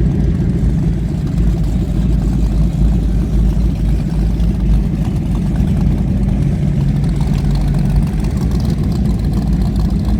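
High-performance powerboat engines running at low idle speed: a loud, steady, deep rumble that stays even throughout.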